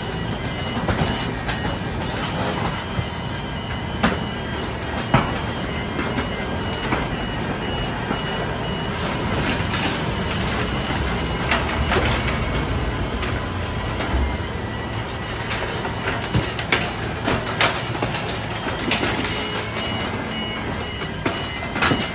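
Crushr dumpster grinder at work: the boom truck's engine and hydraulics run steadily while the spiked drum crushes debris in the dumpster with scattered sharp cracks and snaps. A warning alarm beeps in a steady repeating pattern over it.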